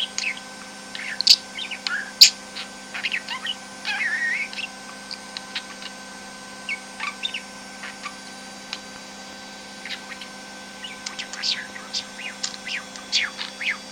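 Budgerigar chirping and warbling in short, quick calls, with a quieter stretch in the middle and a busier run of chirps near the end.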